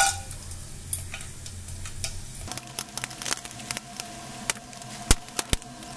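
Whole spices (cardamom pods, cinnamon, star anise, bay leaf, cloves) sizzling and crackling in hot oil and ghee in an open pressure cooker, with scattered sharp pops, the two loudest about five seconds in.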